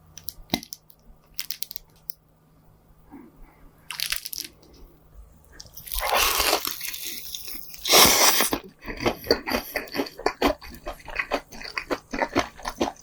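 Close-miked eating sounds: loud crunching bites into a crispy fried chicken drumstick about six and eight seconds in, then rapid crackling chewing.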